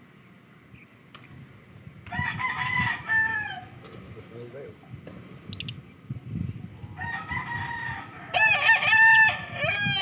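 A rooster crowing twice, each crow a long held note that falls at the end, about two seconds in and again about seven seconds in. Shrill, rapidly bending chirps from lovebirds follow the second crow near the end.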